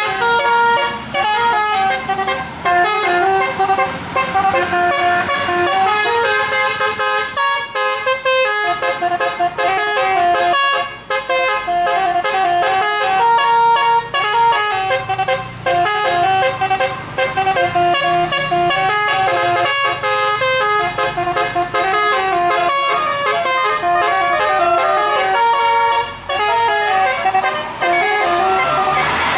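Bus 'basuri' telolet musical horn playing a long melody, note after note in a pianika-like tune, with short breaks about 11 and 26 seconds in.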